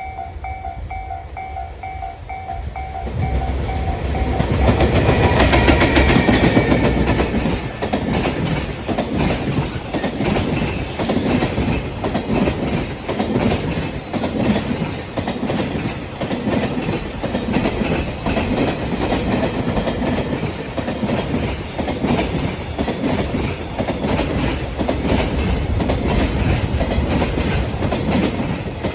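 Level-crossing warning bell ringing in a quick repeating two-tone pulse. About three seconds in, a JR Freight EF210-300 electric locomotive arrives and passes loudly, drowning the bell out. Then a long train of Koki container flatcars rolls by with a steady clickety-clack of wheels over the rail joints.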